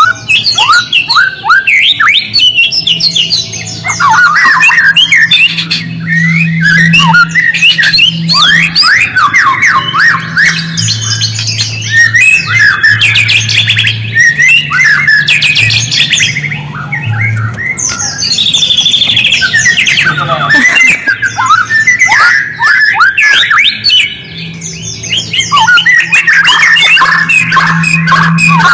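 White-rumped shama (murai batu) chattering: dense runs of quick, falling call notes, the 'ngriwik' chatter, with short pauses about two-thirds of the way in and again near the end. A low hum comes and goes underneath.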